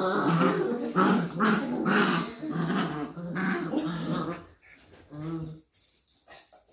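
Beagle puppies growling at each other as they wrestle: a run of overlapping growls that stops about four and a half seconds in, then one more short growl.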